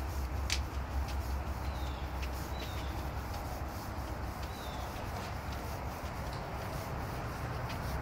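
Wind rumbling and rubbing on a handheld camera's microphone as it is carried along. The rumble is strongest in the first few seconds, with faint clicks. Three short, high, falling bird chirps come in the middle.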